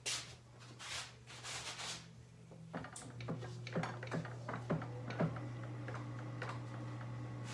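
Handling noise for the first two seconds, then a steady low electrical hum starts at about three seconds with a quick run of light clicks over it, about three a second, as tools and parts are worked on.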